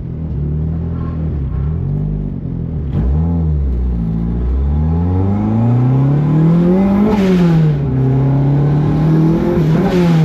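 Turbocharged 1.6-litre Mazda Miata four-cylinder pulling hard under load. The engine pitch climbs steadily for about three seconds, drops sharply with a rush of air at a gear change about seven seconds in, and starts climbing again near the end.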